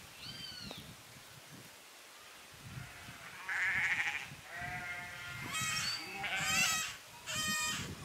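Sheep bleating, about five calls in quick succession in the second half, some with a wavering, quavering pitch.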